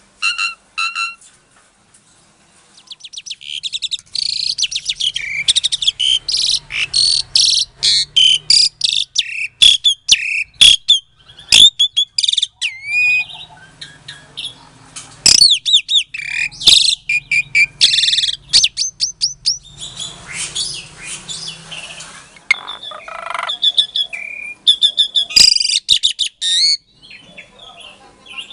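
Javan pied starling (jalak suren) singing a long, varied song of rapid chattering trills, whistled glides and sharp clicks. It starts with two short calls, then runs almost without a break from about three seconds in until near the end.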